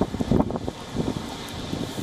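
Strong storm wind gusting and buffeting the microphone in uneven rumbling blasts.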